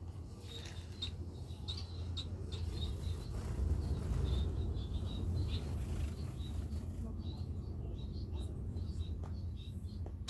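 Society finches giving many short, high chirps, over a steady low rumble.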